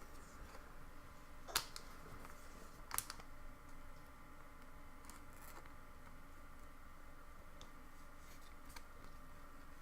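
Quiet handling of Pokémon trading cards, with two sharp clicks about one and a half and three seconds in, then a few faint ticks over a low steady hum.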